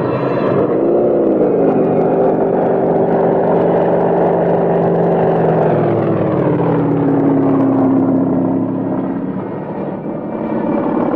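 Propeller aircraft engine droning steadily. Its pitch swells briefly about a second in, then falls around six to seven seconds in, and the sound dips slightly near the end.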